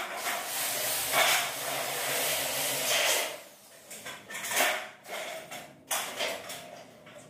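A handheld power drill runs steadily for about three seconds and stops, followed by a few short knocks and clatters of work on the steel stud framing.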